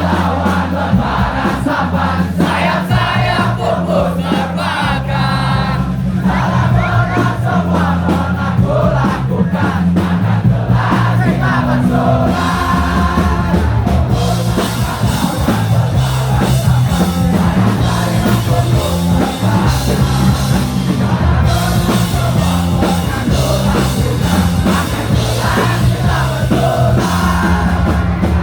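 Live punk rock band playing a song, with a steady bass line under the guitars, a singer, and a crowd.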